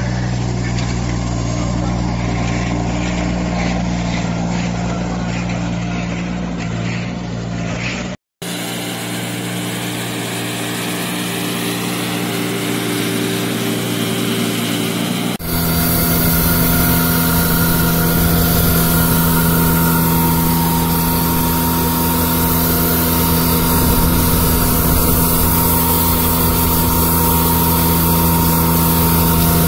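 Compact street sweeper's diesel engine running steadily at work, with a brief dropout about eight seconds in. From about fifteen seconds in it is louder, with more hiss and a steady hum.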